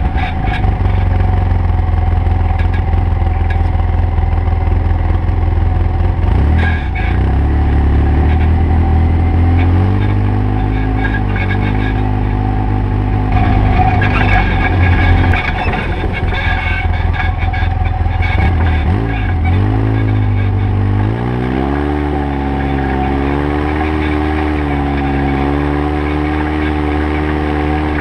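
Side-by-side UTV engine running continuously on a rough dirt trail, its note rising and falling with the throttle, with the wavering most marked in the last several seconds.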